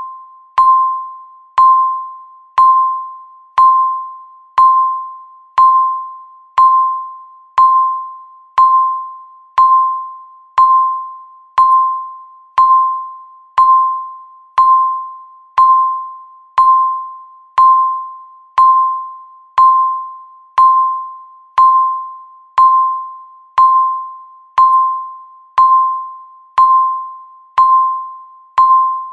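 Countdown timer beeps: a single mid-pitched electronic ping once a second, each starting sharply and fading away quickly, ticking off the seconds left.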